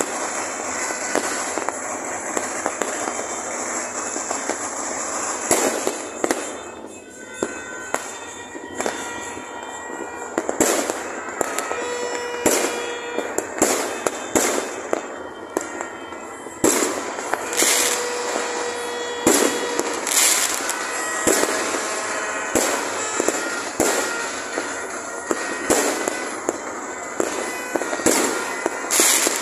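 Many fireworks and firecrackers going off at once: sharp bangs every second or so over a constant haze of more distant bursts and crackling.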